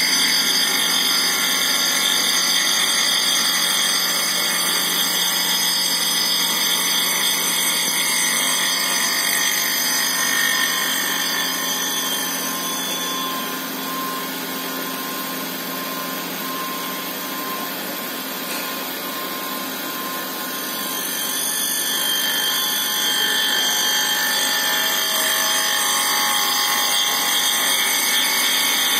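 A power tool running steadily with a high whine, easing off somewhat through the middle stretch before picking up again.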